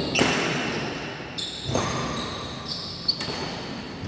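Badminton rally: sharp smacks of rackets hitting the shuttlecock roughly every second and a half, over the noise of a sports hall.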